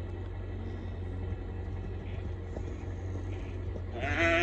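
Steady low rumble throughout; near the end a calf starts bawling, a loud, wavering call.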